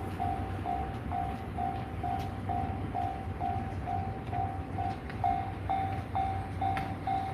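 Japanese railway level-crossing warning bell ringing in even, single-pitched dings about twice a second. Underneath it is a low rumble with a few sharp clicks, which the tagger takes for a train passing.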